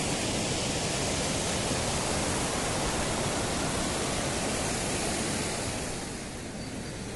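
Steady rush of fast-flowing stream water close to the microphone, an even hiss-and-roar that eases a little about six seconds in.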